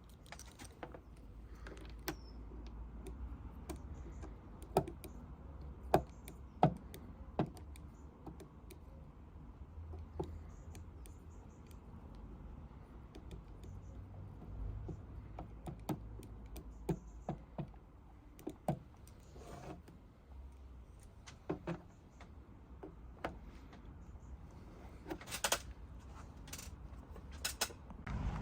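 Scattered sharp clicks and light knocks of hard objects being handled, irregular and a few seconds apart, over a low steady hum, with two brief hisses near the end.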